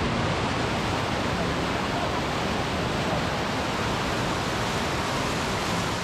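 Steady rush of a waterfall, an even hiss of falling water with no change in level.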